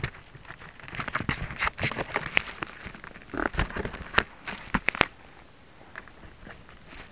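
Irregular clicks, crackles and rustling, dense for about five seconds and then dying down to a few faint clicks; no motor is running.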